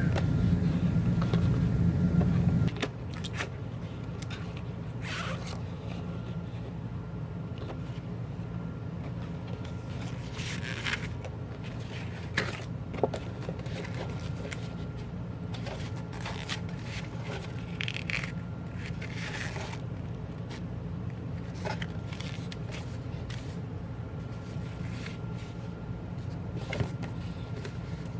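Cardboard box and plastic packaging being handled and opened: scattered scrapes, rustles and sharp clicks over a steady low hum, which is louder for the first few seconds and then drops abruptly.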